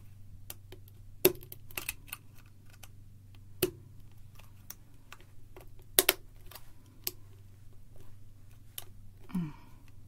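Small scattered clicks and taps of an iPod Mini's casing and plastic end parts being handled and pressed back together. A few clicks are sharper: one a little over a second in, one near the middle, and the loudest about six seconds in.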